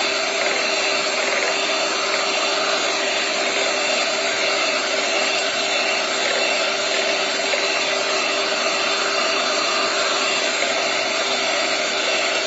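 Electric hand mixer running steadily, its beaters whisking eggs as sugar is added, beating until the sugar dissolves. The motor gives an even hum with one constant tone.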